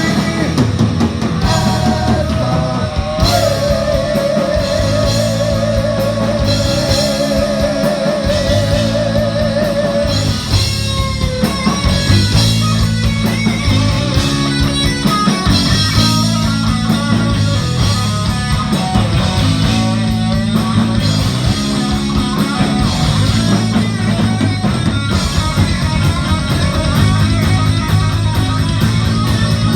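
Rock music with electric guitar and drum kit and a steady driving bass line; a long held note with vibrato wavers for several seconds near the start.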